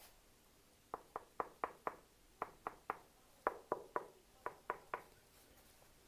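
Knuckles rapping on solid ash wood: about fourteen quick, sharp knocks in short runs of five, three, three and three.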